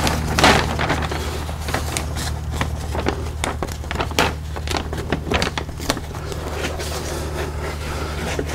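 Brown masking paper crinkling and rustling in irregular crackles as it is pressed and smoothed by hand against a car body, over a steady low hum from a shop fan.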